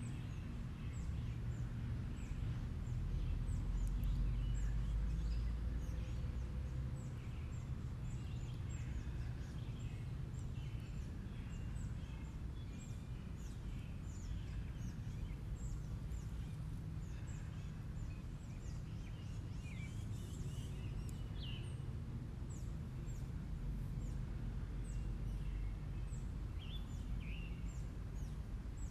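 Outdoor ambience: a steady low rumble, louder a few seconds in, under many short, high chirps from small birds and a few lower calls about two-thirds of the way through.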